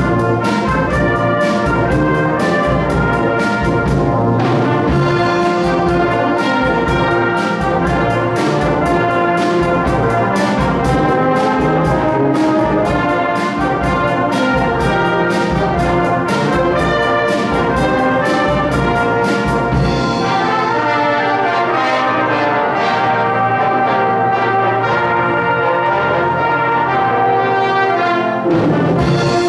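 Brass band playing with a drum kit keeping a steady beat. About two-thirds of the way through, the drums stop and the brass carries on alone. The drums come back in near the end.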